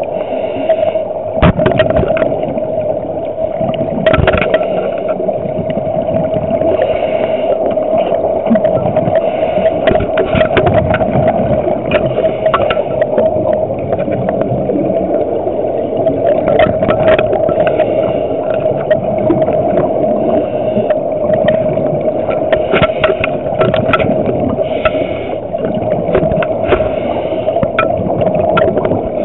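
Underwater audio through a small camera's housing: a steady drone with scattered clicks and crackles, and bursts of bubbling every few seconds from a scuba diver's regulator exhaust.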